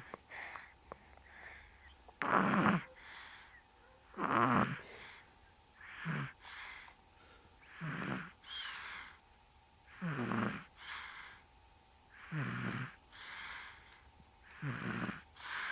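A sleeper snoring in a steady rhythm, about one loud snore every two seconds, each followed by a softer breath out. Only quiet breathing is heard in the first two seconds.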